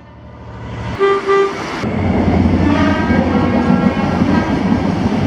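Train horn sounding two short toots about a second in, then a steady low rumble of the train with a fainter horn chord about three seconds in.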